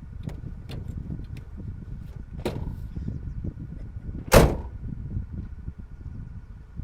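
Low vehicle rumble with scattered light knocks, and one loud, sharp thump about four and a half seconds in.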